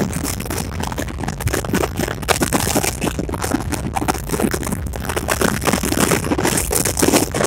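Passenger train running: a loud, continuous rattle and rumble of wheels on track, with many irregular clicks.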